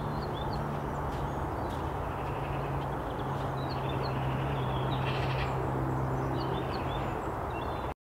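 Winter woodland ambience: small birds chirping on and off, with a harsh bird call about five seconds in, over a steady background rush and a low hum.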